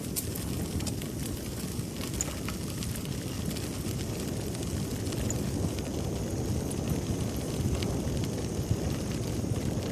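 Steady low rumble of wind buffeting the microphone on a moving bicycle, with the tyres rolling over the trail and faint small ticks.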